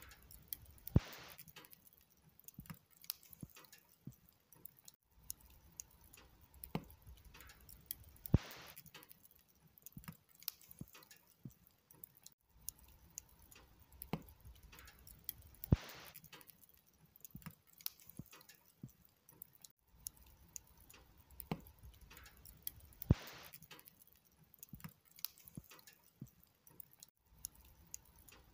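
Log fire crackling: burning wood snapping and ticking over a faint hiss of the flames, with a louder sharp pop about every seven and a half seconds.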